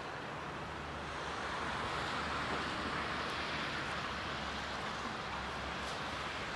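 Steam locomotives venting steam: a steady hiss that swells about a second in, over a low hum.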